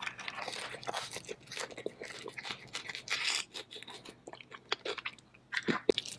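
Close-miked crunching and chewing of Hot Cheetos–crusted crab dipped in cream sauce, loudest in crunchy spells in the first second and around three seconds in, with a few sharp clicks near the end.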